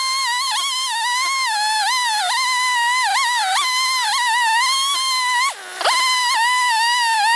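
Battery-powered chainsaw cutting into a tree stump: a high motor-and-chain whine whose pitch sags again and again as the chain bites into the wood. About five and a half seconds in, the saw winds down sharply and spins straight back up.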